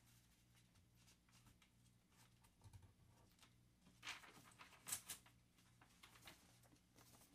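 Near silence: room tone with a few faint rustles and light taps, a paper sign being handled against a wall, the clearest about four and five seconds in.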